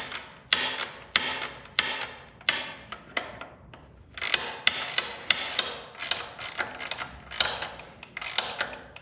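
Metal hand-tool work on garage door hardware: sharp mechanical clicks in a steady rhythm, about one and a half a second, with a short pause a little past three seconds in.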